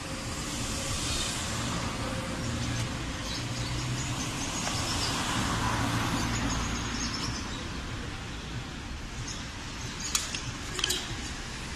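A car running, a steady engine hum with road noise that swells a little and eases off, with a few sharp clicks near the end.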